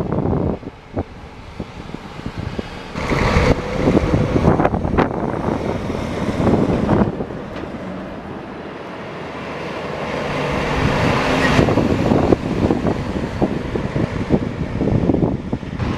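Heavy trucks driving past on a road one after another, their diesel engines and tyre noise swelling and fading as each goes by, with a quieter lull about halfway through.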